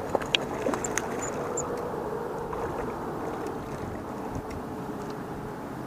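A small hooked fish splashing at the water's surface, with a few short sharp splashes in the first second or two. A steady hiss of wind and water runs underneath.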